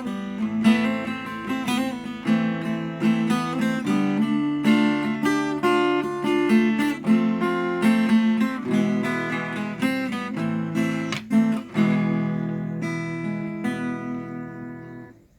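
Acoustic guitar played with a mix of strummed chords and picked notes. The last chord rings out and fades away just before the end.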